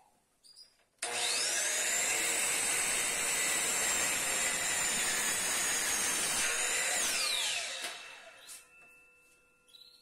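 Miter saw motor switching on about a second in with a rising whine, running at full speed while the blade cuts down through a stack of wooden strips, then released and spinning down with a falling whine near the end.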